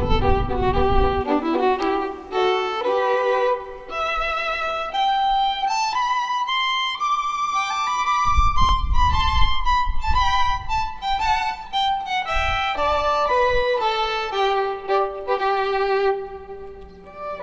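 Background music: a violin plays a melody of held notes with vibrato, moving up and down in steps. Brief low rumbles lie underneath near the start and about halfway through.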